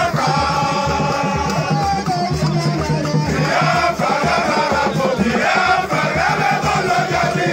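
A group of voices singing a chant together over a steady drum beat, about two beats a second.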